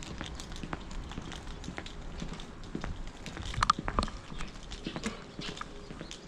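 Footsteps of a person walking on an asphalt street, a steady series of sharp steps at walking pace, with one louder sharp sound a little past halfway.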